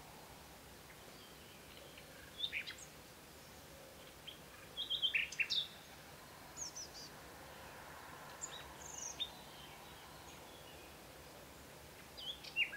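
Small birds calling and chirping now and then: short, high notes in scattered clusters, a little louder about five seconds in, over a faint outdoor background hiss.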